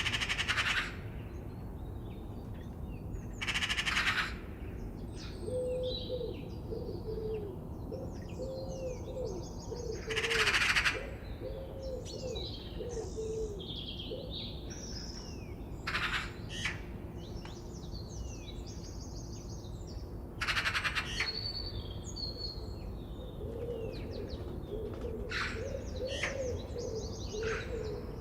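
Forest birdsong: many small birds chirping and trilling, broken every few seconds by short harsh, noisy bursts that are the loudest sounds, with a low wavering call running underneath for much of the time.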